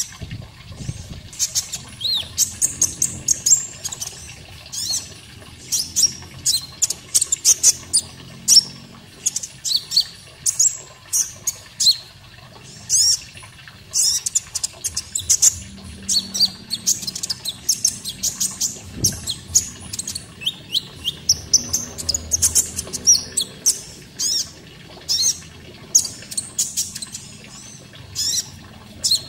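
Olive-backed sunbird (kolibri ninja, 'konin') singing: a dense run of short, sharp high chirps and quick trills, over a faint steady sound of running water.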